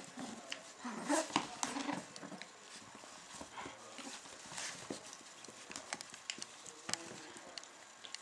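Chinese crested puppies play-fighting: a few short puppy vocal noises in the first couple of seconds, then scattered light taps and scuffles as they tussle.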